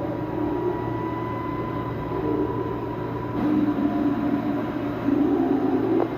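A low, steady rumbling drone over a constant hum, with irregular groaning swells. A thin high whine sounds for the first three seconds, then stops.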